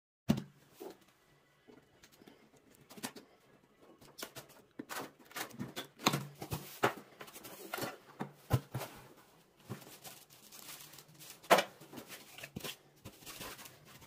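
A cardboard box being opened and unpacked by hand: irregular sharp knocks and scrapes of the cardboard flaps and inserts, with rustling of the packing sheet. The loudest knocks come just after the start and about eleven and a half seconds in.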